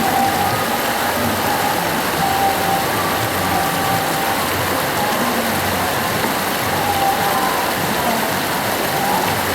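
Fast-flowing Ganges River rushing over its bed: a steady, even wash of water noise, with a few faint short tones over it.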